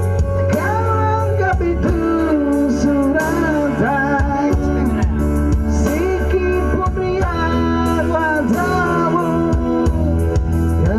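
A song with a male voice singing over guitar, bass and drums.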